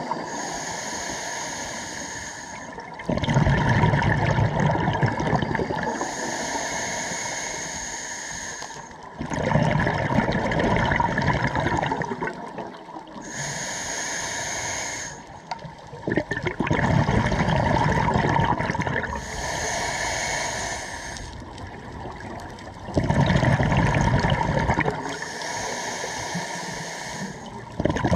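Scuba diver breathing through a regulator underwater: each breath is a hissing inhale followed by a louder gush of exhaled bubbles, about five breaths, one every five to six seconds.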